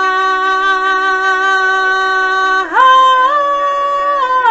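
A young woman singing solo, holding one long note, then sliding up to a higher held note about three seconds in.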